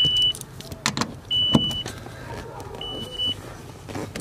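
Nissan D21 Hardbody's cab warning chime beeping: a steady high tone about every second and a half. Between the beeps come a few sharp knocks and clicks from a socket wrench on the seat's mounting bolts.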